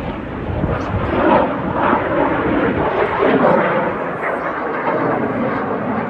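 Jet engines of the Snowbirds' CT-114 Tutor aircraft passing overhead, a rushing roar that swells about a second in and eases off after about four seconds. Voices are faintly mixed in.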